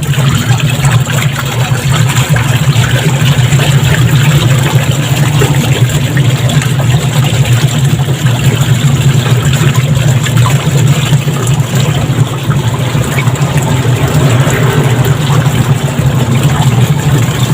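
Washing machine's wash motor running with a steady, unbroken hum, turning the tub in one direction only without stopping to reverse: the sign of a worn timer switch.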